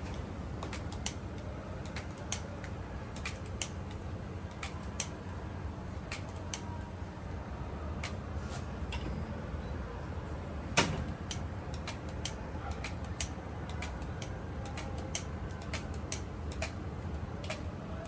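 Handheld batter dispenser and cast-iron taiyaki molds clicking and clacking as batter is dropped into the fish-shaped molds: sharp metal clicks, one or two a second, with one louder clack about eleven seconds in, over a steady low rumble.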